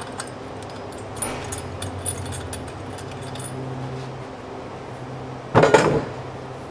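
Light metallic clinks of clutch parts and hand tools being handled, then one loud metal clank about five and a half seconds in, over a steady low hum.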